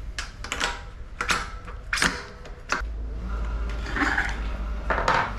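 Workshop handling sounds: a string of sharp clicks and knocks as tools and parts are handled at the bench. A low steady hum comes in about three seconds in and stops shortly before the end.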